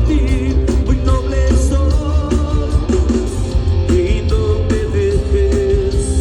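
Live rock band playing with a singer, recorded from the crowd: sung vocal line over electric guitar, heavy bass and drums.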